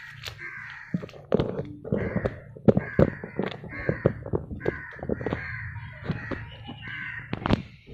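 Sharp crackles and knocks of plastic and gloved hands handling an oyster mushroom substrate block, with a bird calling repeatedly in short harsh bursts in the background.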